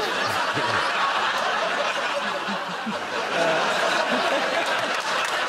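Large studio audience laughing, a sustained wave of many voices.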